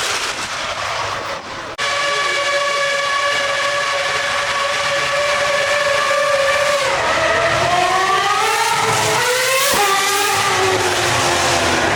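Formula 1 car's engine running at high, steady revs, then revving higher in rising sweeps about two-thirds of the way through before the note cuts off suddenly.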